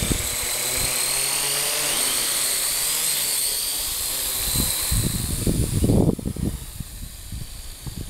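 Ares Ethos QX130 quadcopter's electric motors and propellers whining at a high pitch that wavers with the throttle as it lifts off from the hand. The whine fades about six seconds in as the quad is carried away. Shortly before that there are low rumbles of wind on the microphone.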